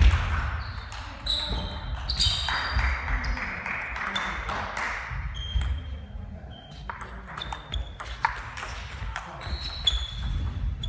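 Table tennis balls clicking off tables and bats at several tables around a sports hall: irregular sharp ticks with brief high pings, over murmuring voices.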